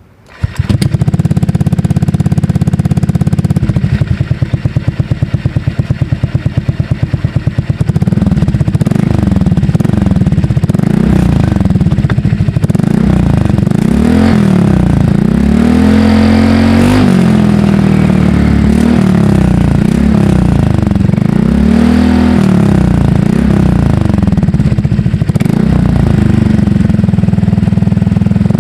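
Honda Click scooter's single-cylinder engine through an SC Project exhaust fitted with a double silencer, starting about half a second in and idling. After several seconds it is revved repeatedly, the pitch rising and falling with each blip.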